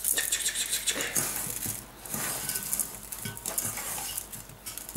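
Raw chicken drumsticks being tossed by hand in a stainless steel bowl: wet meat shifting and pieces knocking against the metal in a run of irregular small clicks and rustles.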